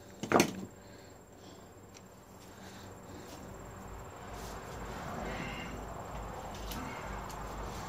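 A single sharp knock with a brief ring about half a second in, then rustling and handling noise from clothing and hands moving close by, growing slowly louder.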